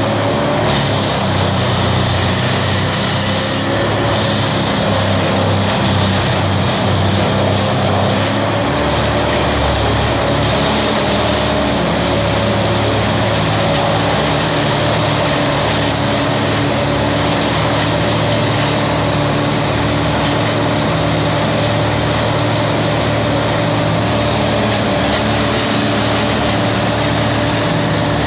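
Tow-behind wood chipper's engine running steadily at high speed, with a deeper low rumble from about eight seconds in.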